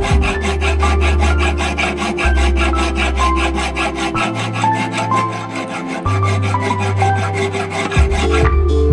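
Hand file rasping in repeated strokes across a metal axe head, under background music with a steady bass line and melody. The sound drops away briefly near the end.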